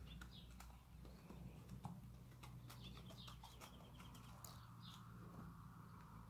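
Faint hoofbeats of a horse walking on packed dirt, scattered soft clicks, with birds chirping.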